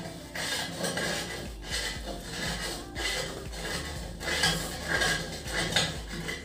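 Fingers mixing and scooping rice in a stainless-steel plate: a run of rubbing and scraping of the hand and rice against the metal.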